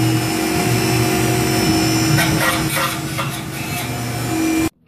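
Tormach PCNC 1100 CNC mill drilling holes in an orange handle blank: a steady spindle whine under the noise of the drill cutting. It cuts off suddenly near the end.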